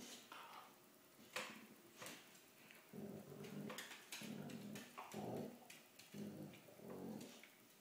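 A dog growling in play while wrestling, in short low rumbling bouts of about half a second, six or so in a row from a few seconds in, with sharp scuffling clicks earlier on.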